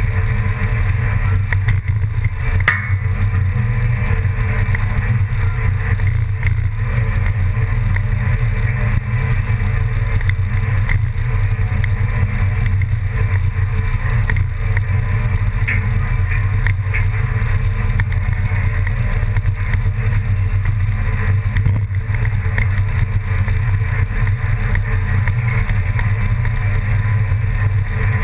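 An engine running at a steady speed: a constant low drone.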